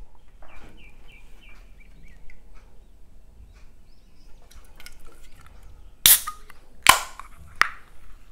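A drink can being handled, with three sharp clicks about a second apart.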